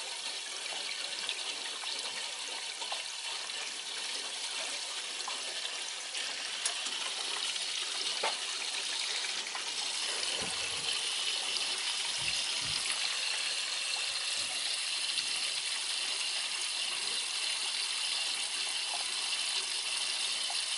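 Water rushing steadily out through an open purge valve and drain hose as air is purged from a zone of a hot-water heating system. The hiss grows slightly louder about halfway through.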